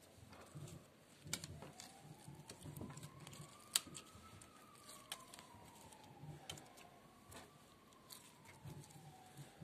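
Fingers pressing and poking clear glitter slime, making small sticky clicks and pops, with one sharper pop about four seconds in. A faint tone slowly rises and falls in the background.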